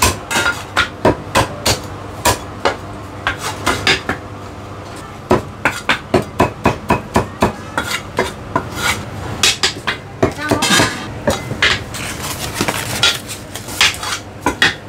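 Heavy steel cleaver chopping roast meat on a thick round wooden chopping block: a quick, irregular run of sharp knocks with a short pause about four seconds in.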